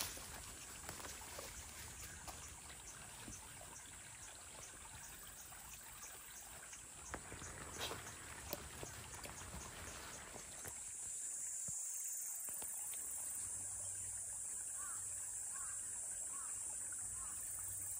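Water trickling in a shallow channel, with a few sharp clicks about eight seconds in. About ten seconds in this gives way to a steady high-pitched drone of insects, with a few short chirps near the end.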